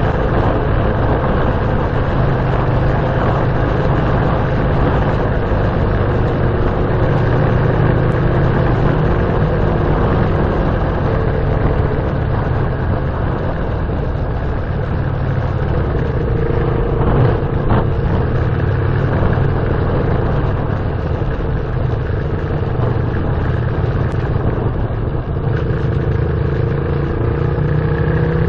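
A vehicle engine runs steadily and loudly at an even pitch, which rises a little about halfway through. There is a short knock or click about two-thirds of the way in.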